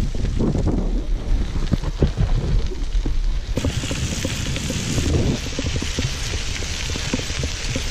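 Bicycle tyres rolling over a loose gravel trail, a dense crackle of small stones popping under the tread, over a steady low rumble of wind on the microphone. About three and a half seconds in, a brighter hiss joins the crackle.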